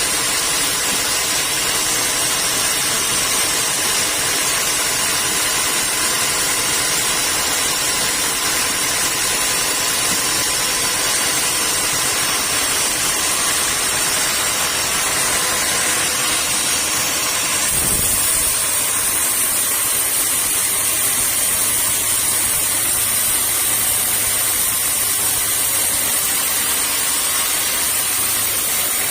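Sawmill saw machinery running steadily, a loud mechanical hum and hiss. A single thump comes about eighteen seconds in, and the machine's tone shifts slightly after it.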